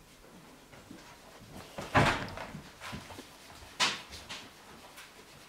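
Two sharp household knocks: a louder one about two seconds in and a crisper, higher one just before four seconds, with a few small clicks between them.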